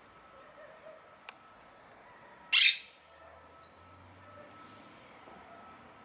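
Monk parakeet giving a single loud, harsh squawk about two and a half seconds in. A fainter rising whistle and a quick run of about six high bird notes follow a second later.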